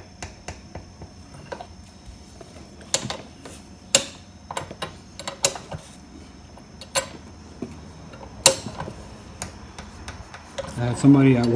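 Hand wrench working a winch-mount bolt: a run of small metallic ticks and clicks, broken by a few louder clanks every second or two.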